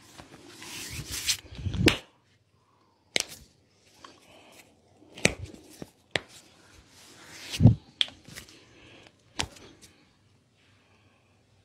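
Hands working in a massage: rubbing, hissy friction broken by about seven short, sharp smacks spread across the seconds, going quiet near the end.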